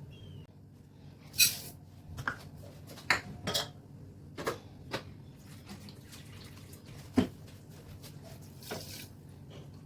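Kitchen utensils and dishes clinking and tapping, about eight separate knocks spread unevenly, with two louder clinks near the start and a little past the middle, over a faint steady low hum.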